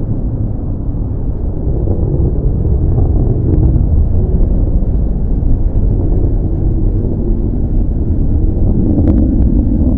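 F-22 Raptor's twin Pratt & Whitney F119 turbofans running on afterburner, a loud, deep, steady rumble as the jet climbs away after takeoff.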